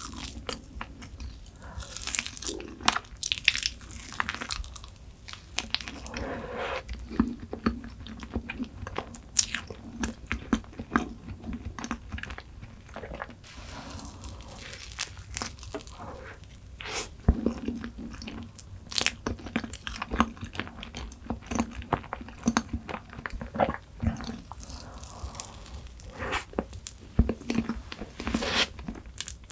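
Close-miked eating of chocolate desserts: many sharp crunchy bites and steady chewing.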